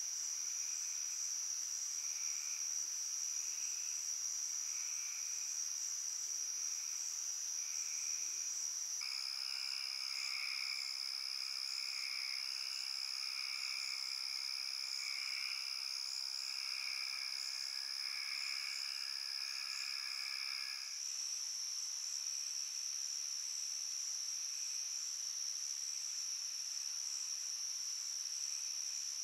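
Night insect chorus: a steady high-pitched trill from crickets or katydids, with a lower call repeating about once a second. About nine seconds in, the lower call abruptly thickens into a dense chorus, and it cuts out near the 21-second mark, leaving only the high trill.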